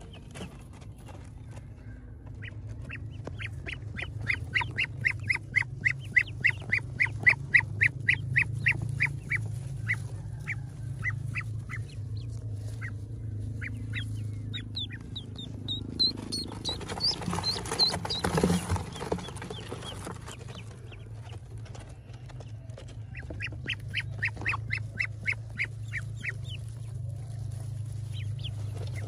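Newly hatched Pekin ducklings peeping in rapid runs of short, high peeps, which come in three spells. A burst of grass rustling, as a hand handles them, comes about halfway through. A steady low hum runs underneath.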